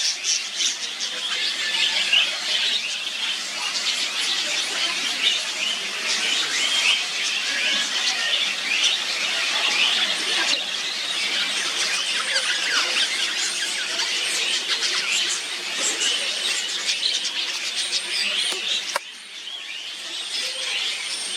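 Many birds chattering at once: a dense, continuous flock chorus of short, high squeaky chirps. It drops suddenly about nineteen seconds in and picks up again more quietly.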